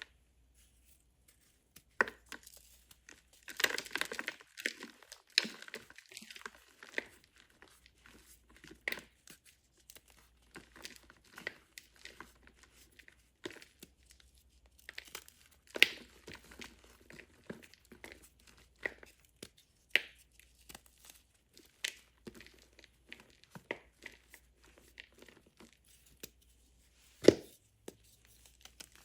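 Reformed gym chalk blocks made with baking soda and cornstarch being crushed, crunching and crumbling in irregular bursts, with a few sharp loud snaps as pieces break.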